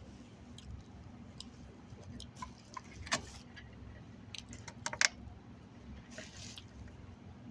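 Eating and food-handling noises: scattered small clicks and rustles, with a sharp click about three seconds in and a louder cluster of clicks around five seconds, over a low steady hum.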